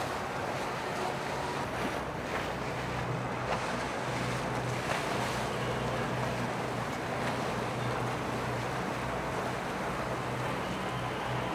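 Boat engine running with a steady low hum, over the wash of water and wind noise on the microphone.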